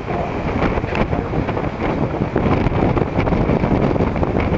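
Wind buffeting the camera's microphone, a steady rough rush heaviest in the low end.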